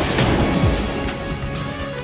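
Background music, with a noisy low rumble dying away in the first second.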